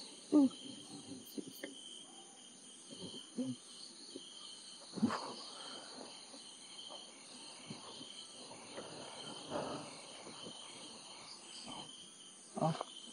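Night insect chorus: crickets chirping steadily in a high-pitched layer, with a few soft thumps and rustles scattered through.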